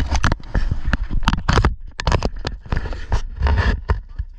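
Handling noise on a handheld camera's microphone: irregular scrapes and knocks over a low wind rumble.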